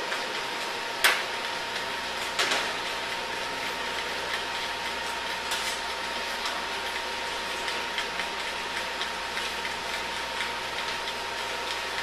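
Kitchen utensils clicking and clinking against a stainless-steel bowl and counter: one sharp clink about a second in, another about two and a half seconds in, then light scattered ticks. Under them runs a steady hiss with a faint constant high tone.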